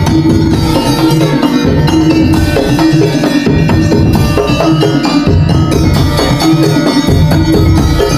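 Madurese tong-tong ensemble playing: fast, even beating on wooden slit drums and drums, with a melody line over the rhythm.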